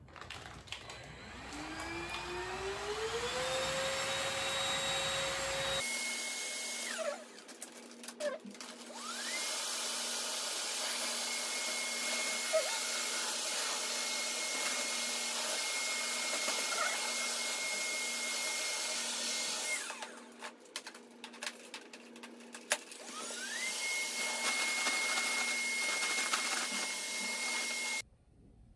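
Small electric motor appliance whirring with a hissing rush and a steady whine, spinning up with a rising whine, running steadily, winding down about twenty seconds in, then starting up again.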